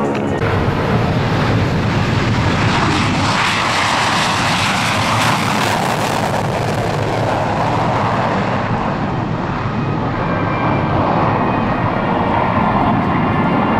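Jet noise of an RAAF F-111's twin Pratt & Whitney TF30 turbofans during a low pass. The sound is at its fullest and most hissing about four to six seconds in, then dulls as the aircraft climbs away.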